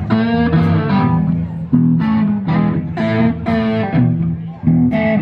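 Amplified electric blues guitar playing a repeating riff, with a bass guitar underneath.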